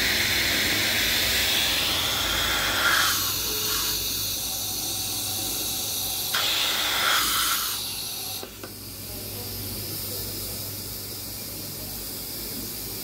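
Compressed measuring air hissing from the jets of a combined air plug and air ring gauge. The hiss drops about 3 s in and comes back from about 6 to 8 s as the low setting master is fitted over the gauge, then settles to a quieter steady hiss once the master is in place.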